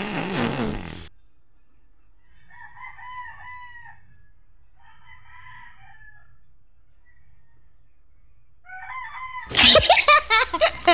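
Roosters crowing faintly three times, each crow one to two seconds long, over a low hum. A loud sound ends about a second in, and another loud sound with a quick pulsing rhythm cuts in near the end.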